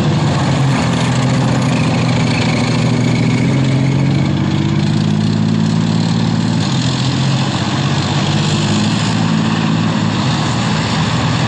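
Column of Marder tracked infantry fighting vehicles driving on a paved road: a steady, loud diesel engine drone over track and road noise, the engine note shifting pitch a couple of times as they move off.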